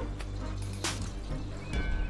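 Background music with a steady bass line and sharp percussion hits.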